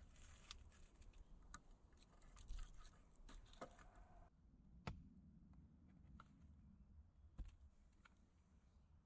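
Faint, scattered clicks and knocks of wooden logs being shifted and laid on a log shelter frame, with a sharper knock about five seconds in and another about seven and a half seconds in.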